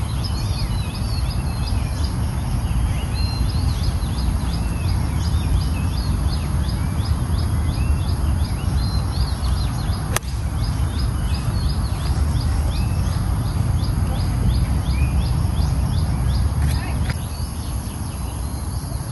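Birds chirping over and over against a steady low rumble, with a single sharp click about ten seconds in: a 50-degree wedge striking a golf ball on a full swing.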